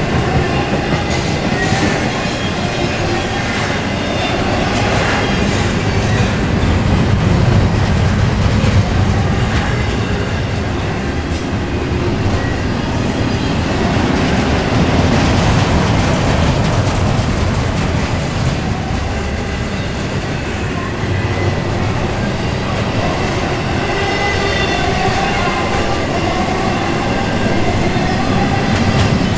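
Double-stack intermodal container well cars rolling past at speed: a steady rumble of steel wheels on rail with repeated clicking and a faint wavering ringing whine.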